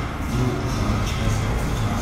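Soundtrack of a projected film re-enacting the massacre, played through the gallery's speakers: background music over a steady low rumble.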